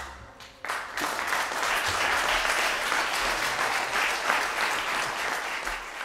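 Small audience applauding, breaking out sharply about half a second in as the band's last note fades.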